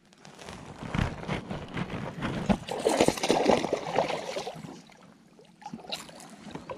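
Water splashing and sloshing as a hooked largemouth bass thrashes at the surface beside a kayak and is brought into the landing net. The splashing is busiest from about one to four and a half seconds in, then dies down.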